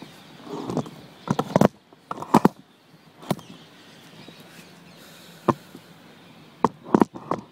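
Handling noise from a hand-held camera being carried and repositioned: irregular knocks, clicks and rubbing, bunched about a second and a half in and again near the end.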